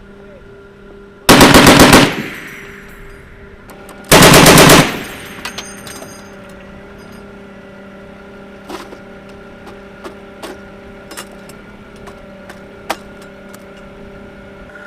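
Two loud bursts of automatic gunfire from a machine gun, each under a second long with the shots coming about ten a second, the second burst about three seconds after the first. Faint single cracks of distant shots follow at intervals.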